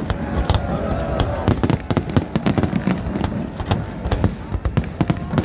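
Fireworks going off in a dense, continuous volley of sharp bangs and crackles, many per second.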